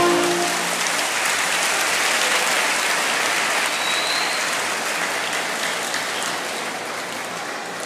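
Recorded choral music cuts off at the very start, and a large crowd applauds, the clapping slowly dying down.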